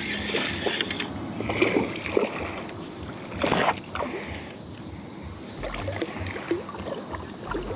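Small bass splashing at the surface while being reeled in to a kayak, with short irregular splashes and water sloshing. The loudest splash comes about three and a half seconds in.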